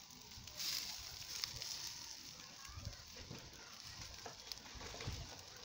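Water sprinkled onto catfish on a wire grill over burning charcoal, hissing loudest for about a second starting half a second in, then sizzling more faintly.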